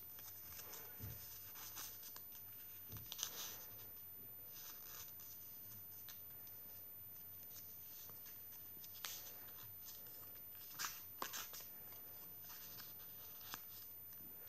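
Paper pages and cards of a handmade mini junk journal being turned and handled: faint rustles and a few short, soft clicks and taps, the clearest about 3, 9 and 11 seconds in.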